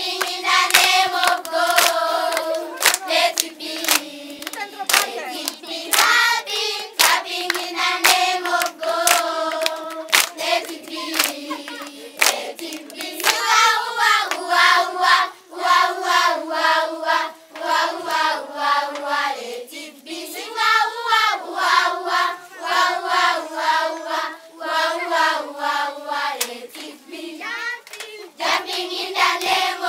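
A group of children singing a song together, with hands clapping along to the beat.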